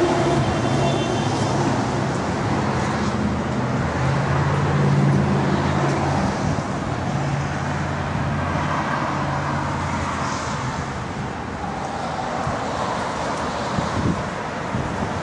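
A motor vehicle engine running steadily with a low hum, over traffic noise; the hum fades after about ten seconds.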